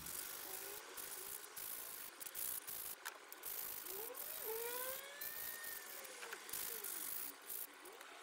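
Sandpaper rubbed by hand over painted pallet-wood boards, a scratchy rasp in quick back-and-forth strokes, with a few faint squeaky glides near the middle.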